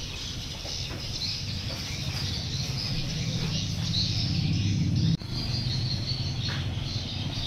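Small birds chirping repeatedly over a steady low rumble, which briefly cuts out about five seconds in.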